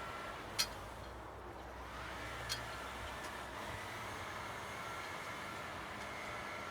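Tractor running a bale processor, a steady mechanical drone with a faint rise and fall in pitch, and two sharp clicks, about half a second in and again about two and a half seconds in.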